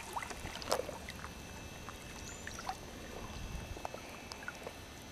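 Small drips and splashes with light water lapping on the surface of a muddy creek, one sharper splash just under a second in.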